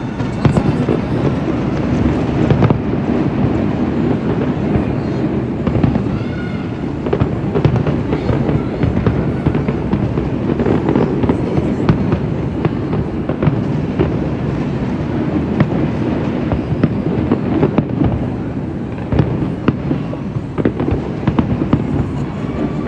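Fireworks display: a dense, continuous run of bangs and crackles over a steady low rumble.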